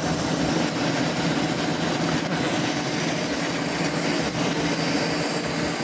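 Coconut-husk defibering machine of a coir mill running steadily while husks are fed into it, beating them to separate coir fibre from pith: a continuous dense mechanical rattle over a steady low hum.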